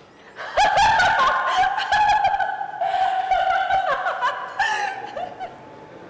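High-pitched giggling laughter in short bursts, with a few sharp clicks among it, fading toward the end.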